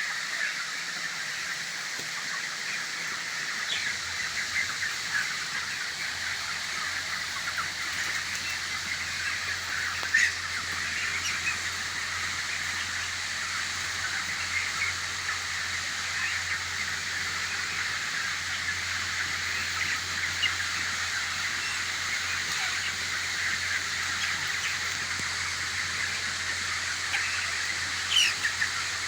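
A large flock of young broiler chickens chirping and chattering, many overlapping calls in a dense, constant din, with a few louder calls standing out. A steady low hum comes in about four seconds in.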